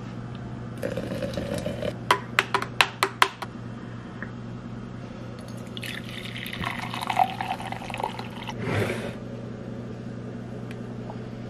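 Coffee being poured from a glass French press into an insulated cup, a splashing pour about six seconds in lasting a couple of seconds. Before it, a quick run of sharp clicks and knocks as the press is handled; a low steady hum sits underneath.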